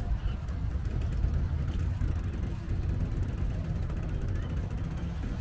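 Ride noise from a bicycle in motion: a steady low rumble of wind on the microphone and tyres rolling on pavement.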